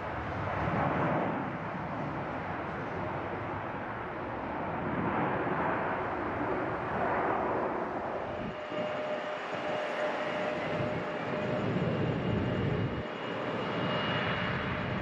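Jet engine noise from an Airbus A320-family airliner's turbofans on the runway roll, a steady rushing sound. About halfway in, the low rumble thins and a steady high whine comes in.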